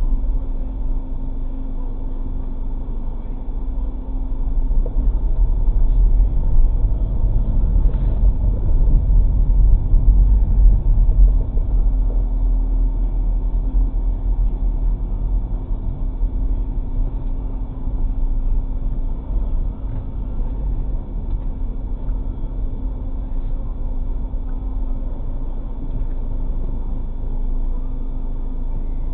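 Low rumble of a car driving slowly, heard from inside the cabin through a dashcam's microphone. It swells for several seconds in the first half, then settles to a steadier, quieter rumble as the car pulls into a parking space.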